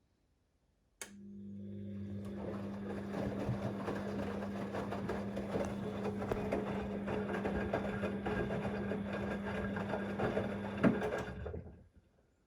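Siemens XLS 140 A washing machine's drain pump switching on with a click about a second in and humming steadily while pumping water out with a rough gurgle. A knock comes near the end, then the pump stops.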